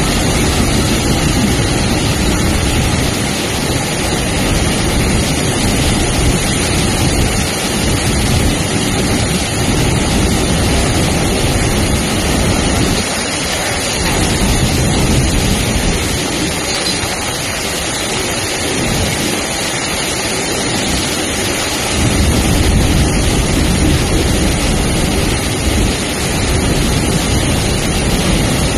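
Freight train of open-top wagons running through floodwater over the tracks: a steady, loud rush of water sprayed up by the wheels, mixed with the rumble of the wagons. The deep rumble thins out for a few seconds past the middle, then comes back.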